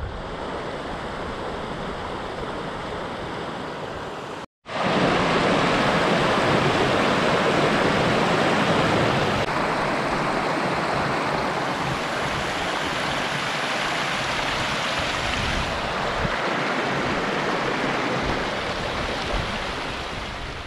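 Shallow mountain stream running over stones, a steady rush of water. It drops out briefly about four and a half seconds in and comes back louder, shifting a little at later cuts.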